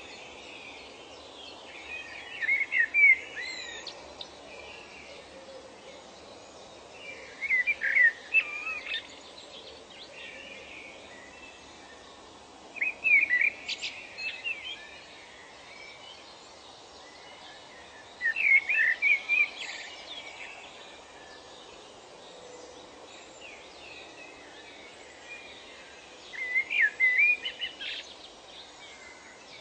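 A songbird singing short warbling phrases, five times at intervals of about five to six seconds, over a steady background hiss.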